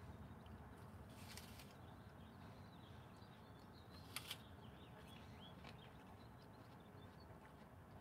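Near silence: faint outdoor background with scattered faint high chirps and two short clicks about four seconds in.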